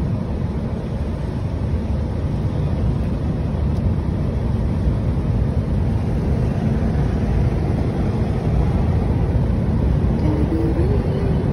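Steady low rumble and hiss of a moving vehicle, heard from inside it.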